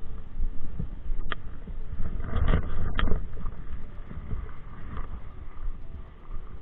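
Close handling noise of fishing gear and a backpack: rustling with a sharp click about a second in, a louder rustle a little later, and another click at about three seconds.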